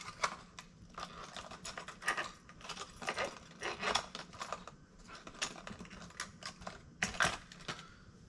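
Irregular light clicks and ticks of hard plastic fishing lures and their packaging being handled on a tabletop.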